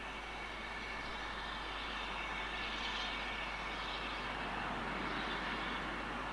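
Steam locomotive Twizell hissing steam, heard as a steady rushing hiss that swells slightly about halfway through and again near the end.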